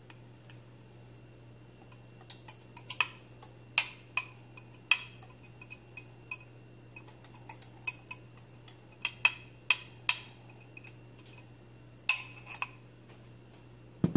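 A utensil clinking and tapping against a dish in irregular, sharp knocks while a layer of cream cheese is spooned into the baking mould, over a faint steady hum.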